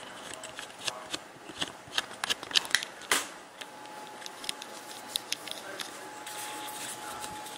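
Handling noise from a capsule espresso machine being moved and turned by hand: a quick run of clicks, taps and rustles, with one louder knock about three seconds in, then quieter, sparser handling.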